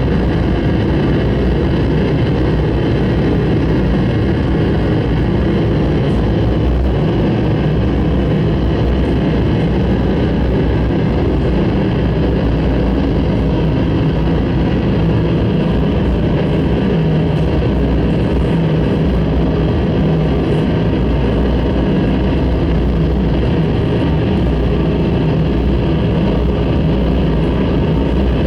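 Noise music: a dense, unchanging wall of droning noise, heaviest in the bass, with many held tones layered through it.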